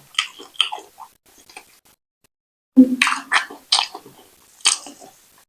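Close-up wet chewing and squelching of fufu with slimy ogbono soup: short, sticky mouth clicks, a quiet gap, then a louder run of chewing from about three seconds in.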